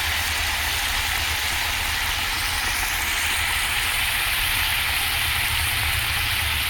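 Fish curry sizzling steadily in hot oil in a kadai, with a low hum underneath.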